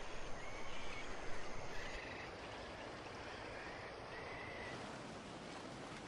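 Faint steady outdoor ambience of wind or water, with three short, flat calls spread through it.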